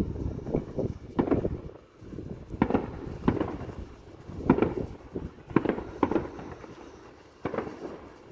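Fireworks going off: a run of sharp bangs and deep booms at irregular intervals, some coming in quick pairs, with a short lull near the end before they resume.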